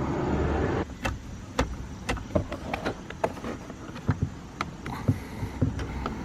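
A steady buzz, like a small electric driver unscrewing the door-panel bolt, cuts off about a second in. Irregular light clicks and taps follow, as tools and plastic trim are handled.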